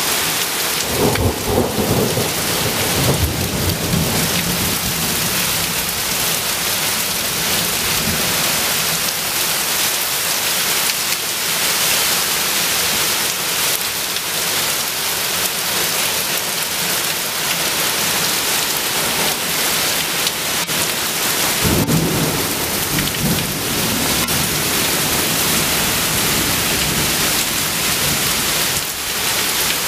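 Heavy wind-driven rain from a thunderstorm pouring down on a lake, a steady loud hiss. Thunder rumbles twice, about a second in and again about two-thirds of the way through.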